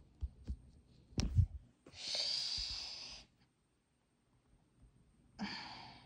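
A few soft knocks, then a long breathy exhale about two seconds in and a shorter one near the end.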